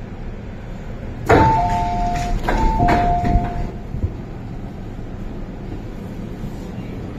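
A sharp knock, then an electronic two-tone chime, high then low, sounding twice, inside an MTR M-Train car at a station, ahead of the doors closing. A steady low train hum runs underneath.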